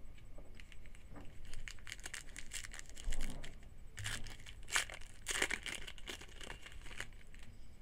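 Foil wrapper of a football trading-card pack being torn open and crinkled by hand, in a run of irregular rustles and crackles.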